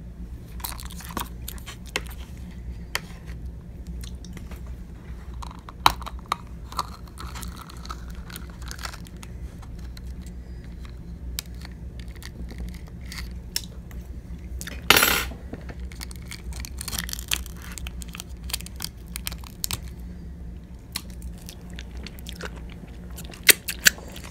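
Small plastic clicks and crinkling as a sealed plastic cup of cranberry sauce is handled and opened, with a fork tapping against plastic. About 15 seconds in there is one louder, brief crinkling rip as the lid comes off.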